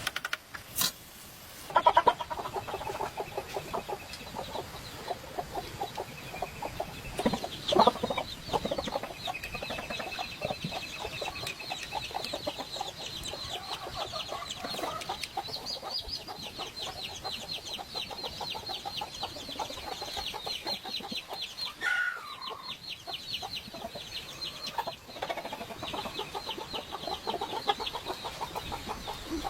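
Chickens clucking almost without a break, with a few louder sharp sounds in the first seconds and one falling call about two thirds of the way through.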